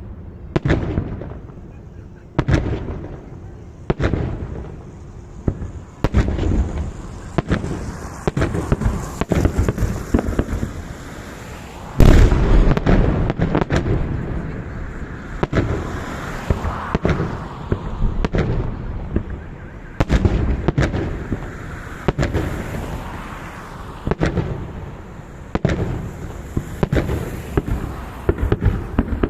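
Fireworks salute: aerial shells bursting one after another with sharp bangs, every second or so, and crackling between them; a burst of loud bangs about twelve seconds in is the loudest moment.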